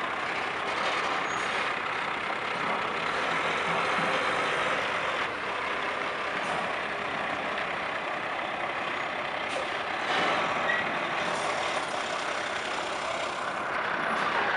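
Peterbilt dump truck's diesel engine running steadily as the tractor and loaded end-dump trailer back up slowly.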